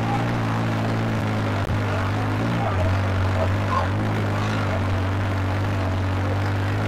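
Modified New Holland 3630 tractor's diesel engine running steadily under load while pulling a tillage implement through dry soil; its note dips slightly a little under three seconds in, then holds.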